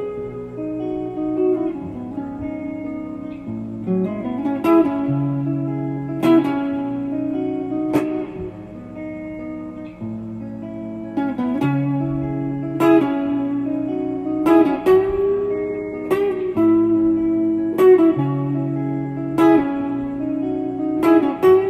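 Guitar music: picked notes over a held bass line, with a sharp struck chord about every second and a half.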